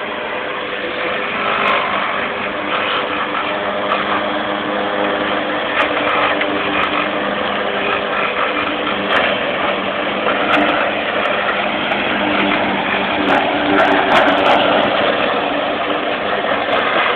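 Riding lawnmower engine running steadily, with a few brief clicks over it.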